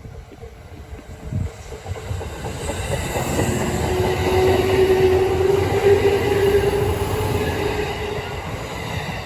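A train passing: its sound builds over a few seconds, is loudest in the middle and fades near the end, with a steady tone held through the loudest part.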